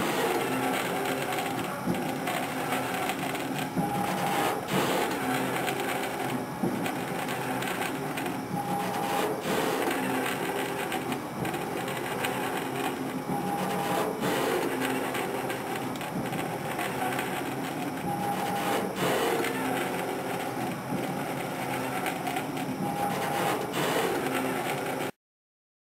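Lufkin pumpjack (beam pumping unit) running on an oil well: its drive and gearbox give a steady mechanical hum with scattered knocks and creaks. The sound swells in a cycle about every five seconds, in time with the walking beam's strokes.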